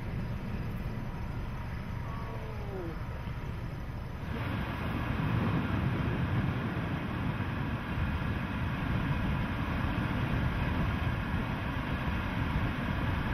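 Wind blowing across an outdoor microphone with a steady low rumble of road noise from the interstate. About four seconds in, the wind noise jumps louder and stays that way.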